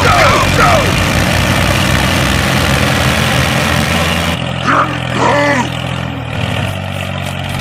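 A machine's engine or motor running steadily with a low hum. The sound changes abruptly a little past halfway, as at a cut.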